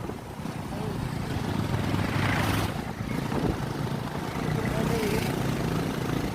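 Motorcycle engine running steadily under way, with a couple of brief bursts of hiss about two and five seconds in.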